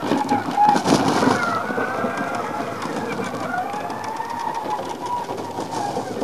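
Electric drive motors of a 100 kg radio-controlled four-wheel-drive robot, a pair of 550 W wheelchair motors, whining and rising and falling in pitch as the robot changes speed. About a second in there is a burst of crunching as it comes down off a dirt pile onto gravel.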